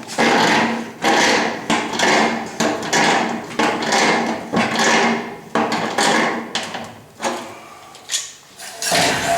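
A run of repeated knocking or scraping strokes from hand work, about one and a half a second, each starting sharply and fading quickly. They slow and drop off about seven seconds in, with another stroke near the end.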